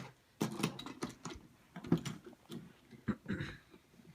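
Irregular light clicks and clatter from a toy train set being played with.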